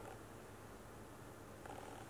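Faint room tone with a steady low hum. At the very start the tail of a baby macaque's falling squeal cuts off, and near the end comes a faint, short whimper.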